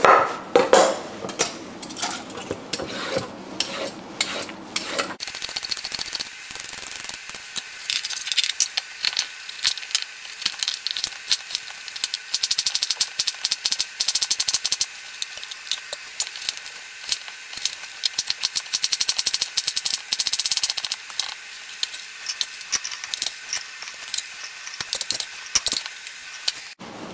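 Chef's knife chopping a carrot on a wooden cutting board: a few seconds of separate knocks on the board, then a long run of fast, thin, high clicking as the carrot is diced.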